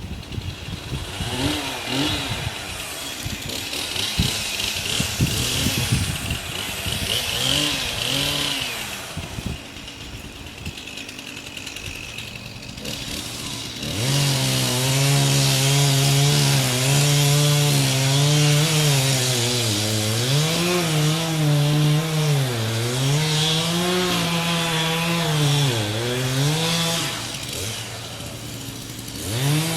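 Two-stroke chainsaw felling a tree: the engine runs unevenly with short revs, then from about halfway it holds a loud, steady full-throttle note. The pitch dips and recovers several times as the chain bogs into the cut. It drops back briefly near the end.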